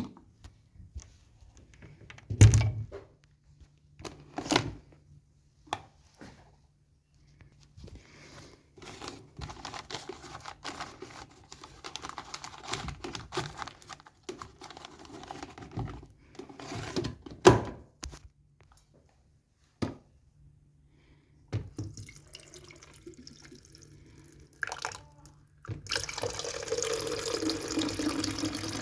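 Sharp knocks and clunks of parts being handled, with stretches of irregular rattling in between. Near the end comes a steady rush of running water.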